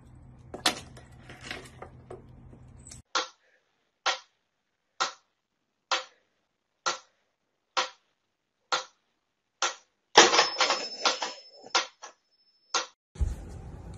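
Mechanical pendulum metronome ticking: single sharp clicks a little under once a second, evenly spaced. After about ten seconds this breaks into a short flurry of rapid clicking and rattling with a faint high whine, louder than the ticks.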